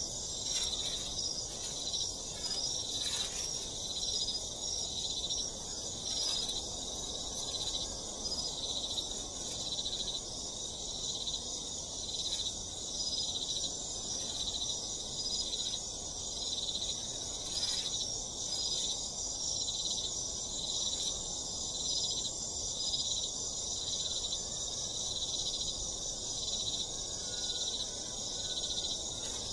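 Continuous high-pitched insect chorus, chirring in two pitch bands that swell in a steady pulse about once a second.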